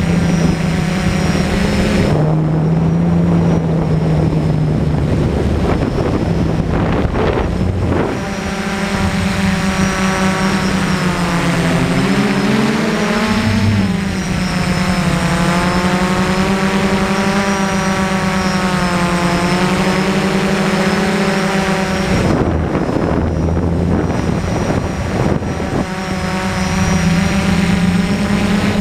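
DJI F450 quadcopter's motors and propellers buzzing in flight, the pitch shifting up and down as the throttle changes, with a few stretches of rushing noise.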